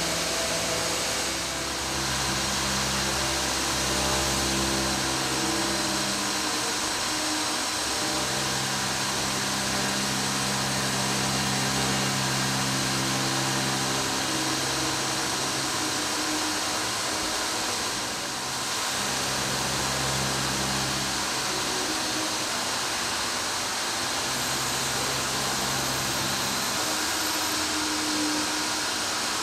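Intermac Master 45 five-axis CNC stone-milling centre cutting a stone block: a steady hiss of the spindle and cutting, with a low motor hum that comes and goes every few seconds as the machine moves.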